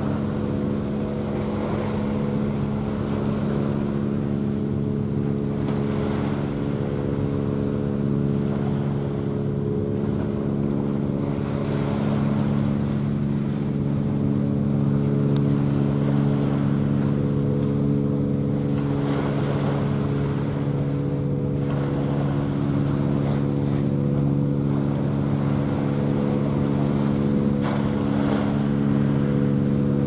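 A boat's engine running steadily, a low drone of several unchanging tones. Water noise and wind on the microphone lie over it, with the wind swelling briefly now and then.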